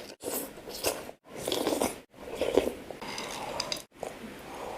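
Close-miked eating sounds, biting and chewing, in about five short clips joined by abrupt cuts.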